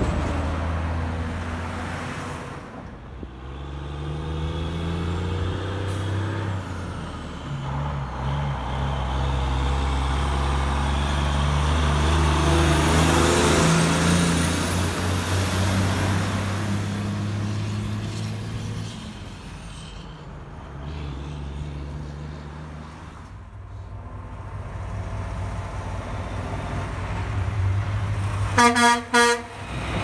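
Heavy diesel truck engines running as trucks pass, louder around the middle. Near the end comes a quick run of short truck-horn toots.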